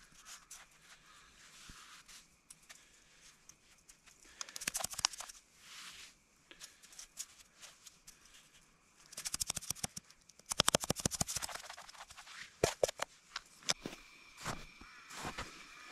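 Fresh snow crunching as a hand scoops and packs it into a small metal camping pot, in several short bursts of rapid crackling.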